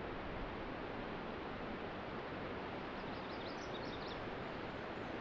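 Steady rush of river water, with a few faint high bird chirps about three seconds in.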